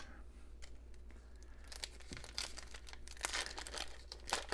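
Foil wrapper of a 2007 Topps football card pack crinkling and tearing as it is ripped open by hand, the crackling starting about two seconds in and running on in quick bursts.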